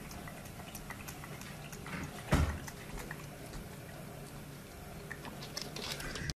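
Mini piglet moving about on a hard floor: light scattered clicks and wet mouth smacking as it noses the floor, with one dull thump a little over two seconds in.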